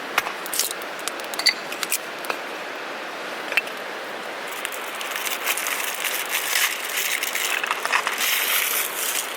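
Scattered sharp clicks, then several seconds of rustling and crinkling that grow louder after the halfway point.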